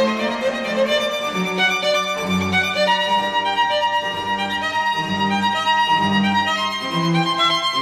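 Background music: held melody notes over a low bass line that changes every half second or so.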